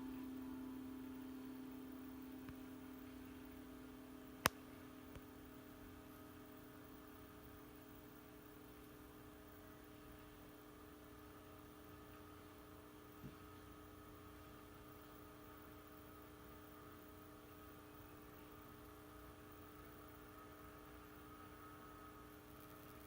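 The last tone of a Columbia C-160 electronic chime dying away, with a sharp click about four seconds in. After that there is only a faint steady electrical hum, with one more small click about halfway through.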